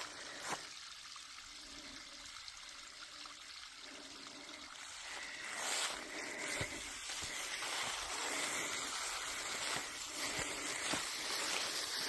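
Small woodland creek trickling over its bed, louder about halfway through, with a few faint knocks.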